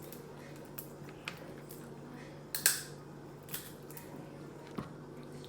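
Scattered sharp cracks and clicks of crab and crawfish shells being cracked and handled, the loudest about two and a half seconds in.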